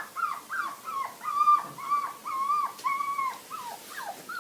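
A dog giving a quick run of high, whining yowls, about ten in all; each one drops in pitch at its end, and those in the middle are held longer.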